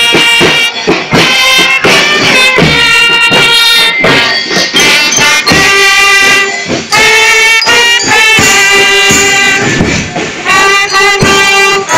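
School marching band playing loudly: trumpets and other brass carry a sustained melody over drum strokes.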